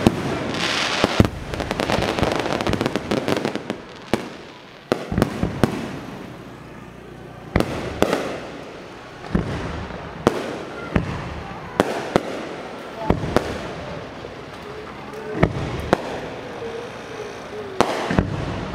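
Aerial fireworks display: shells burst overhead with a dense crackle for the first few seconds, then single sharp bangs about once a second.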